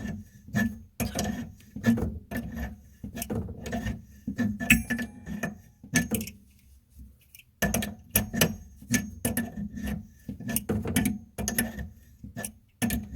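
Tools knocking repeatedly against the metal fittings under a kitchen sink, about two to three sharp strikes a second, with a pause of about a second just past the middle, as the supply-hose fittings are worked loose.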